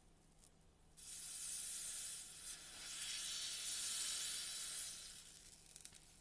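Slime being pressed and worked by hand, giving a fizzy, crackling hiss that starts about a second in and fades out near the end.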